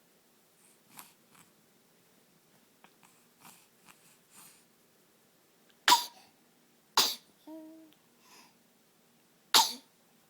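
A person sneezing three times in sharp, loud bursts, the last after a pause of a couple of seconds, with a short voiced sound just after the second. Quiet sniffs and breaths come before the first sneeze.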